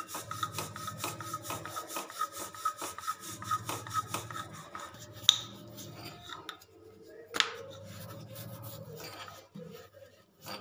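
A rolling pin rolling out a folded paratha of flour dough on a countertop: repeated rubbing strokes back and forth, with two sharp knocks about five and seven seconds in.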